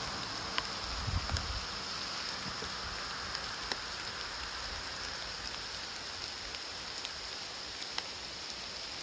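Steady light rain falling, with scattered drops ticking close by and a brief low rumble about a second in.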